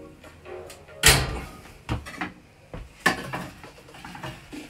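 Metal oven tray pulled out of an electric oven and set down on the cooker top, with the oven door shut: three sharp knocks and clanks, the loudest about a second in.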